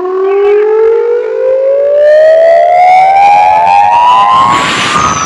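Siren sound effect in a DJ sound-check track, a single wailing tone rising slowly and steadily in pitch. Near the end a rush of noise comes in along with a second, higher tone that falls.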